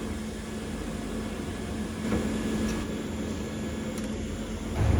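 Steady hum of a CNC lathe's machinery with a constant low tone, briefly a little louder about two seconds in.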